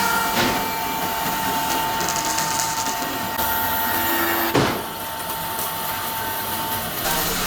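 A woodworking power tool running steadily with a faint whine that stops near the end, and two sharp knocks, about half a second in and about four and a half seconds in.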